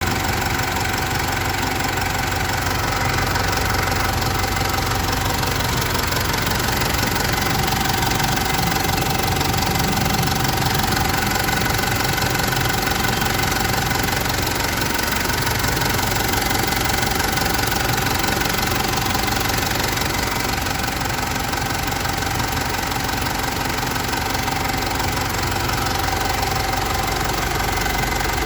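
2010 Mitsubishi Montero Sport GLS SE 4x4 engine idling steadily with a knocking clatter, without any revving.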